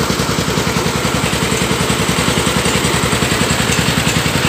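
Engine of a homemade farm truck carrying a rice mill, running steadily at idle with an even, rapid chugging beat.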